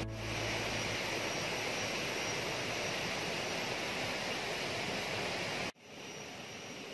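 Steady rushing noise of a forest stream, which cuts off abruptly about five and a half seconds in to a much fainter, quieter ambience.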